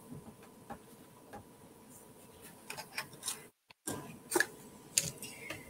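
Faint, scattered small clicks and light rustling of paper and cardstock being handled on a craft desk. The sound cuts out completely for a moment just past the middle.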